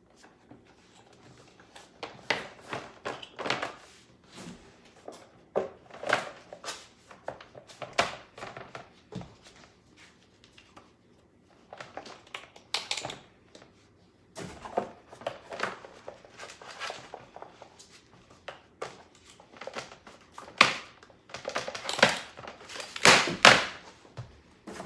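Irregular rubbing, rustling and thuds of a mermaid monofin being handled and worked onto the feet, in short uneven bursts with brief pauses between.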